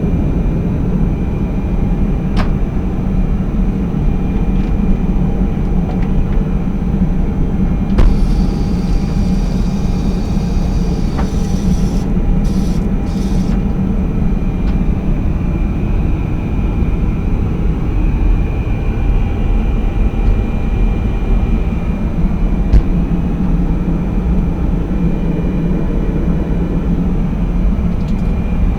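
Steady low rumble of an Ilyushin IL-96 airliner cabin in cruise. About eight seconds in, a click and then the hissing whoosh of the aircraft's vacuum toilet flushing for about four seconds, followed by two short hisses.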